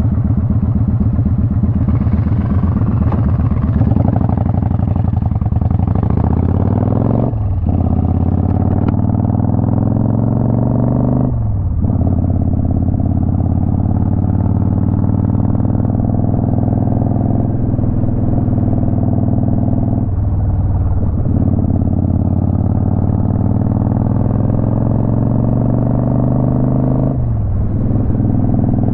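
Twin-cylinder motorcycle engine pulling under way. Its pitch climbs and is cut by four brief breaks for gear changes, each followed by a lower pitch that rises again.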